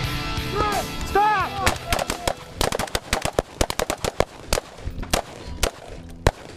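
Rifle fire from a line of several shooters, an IWI Tavor bullpup rifle among them fired close by: rapid, irregular, overlapping sharp cracks starting about a second and a half in, with one last loud shot near the end.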